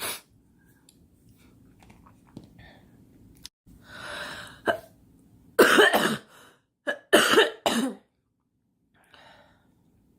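A girl coughing: a breath in about four seconds in, then a pair of coughs, followed a second later by three more in a quick run.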